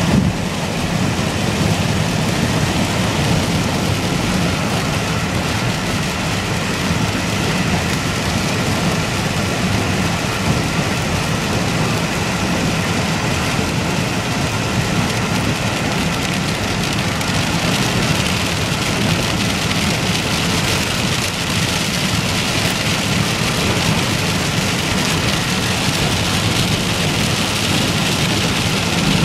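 Heavy rain falling on a car, heard from inside the cabin while driving, with steady tyre and road noise from the wet highway.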